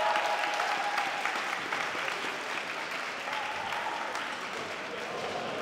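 Audience applauding, gradually dying down.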